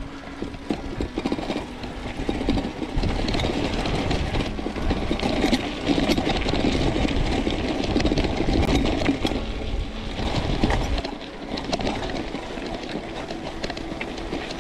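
Mountain bike rolling over a rough dirt and rock trail: tyres rumbling, and the frame and parts rattling and knocking over bumps. It eases off about eleven seconds in.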